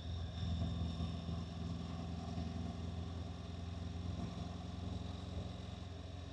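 Honda NC750X motorcycle's parallel-twin engine running steadily while riding, louder from the first moment and holding a nearly even pitch.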